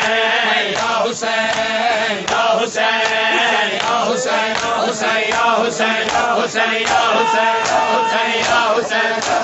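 Men chanting a noha (Shia lament) in a steady rhythm, with the crowd's matam (open hands slapping bare chests in unison) about twice a second.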